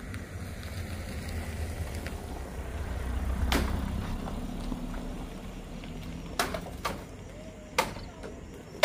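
A motor vehicle engine running, swelling to its loudest about three and a half seconds in and then easing off, with several sharp knocks in the second half.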